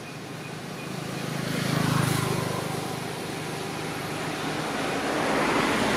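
Motor vehicle going past, its engine and tyre noise swelling to a peak about two seconds in, easing, then building again near the end.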